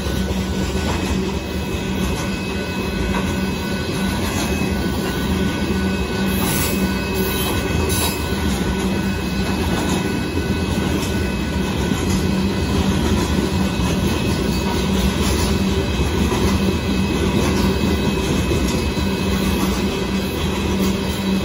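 Loaded gravel hopper cars of a freight train rolling past at close range: a steady rumble and clatter of steel wheels on the rails, with a couple of brief louder clanks about six and eight seconds in.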